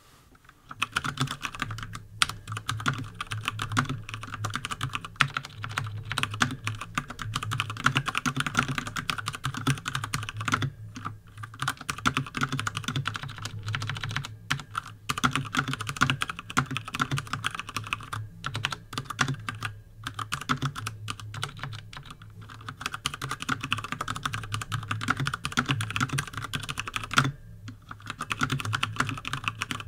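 Steady fast typing on a Durgod Taurus K320 mechanical keyboard with Cherry MX Brown switches, set on a bare wooden desk: a continuous run of keystroke clacks that starts about half a second in, with a few brief pauses.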